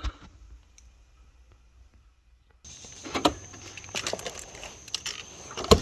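Quiet room tone, then about two and a half seconds in a cut to steady rain pattering, with a thin high whine and several sharp knocks, the loudest near the end.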